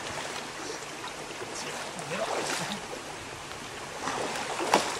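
Shallow creek water sloshing and swishing as a seine net on two poles is dragged through it by people wading, with one brief sharp sound near the end.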